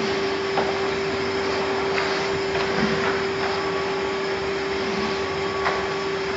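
Egg tray production line machinery at the drying tunnel running steadily: a constant rushing noise with a steady hum, and a few faint light clicks.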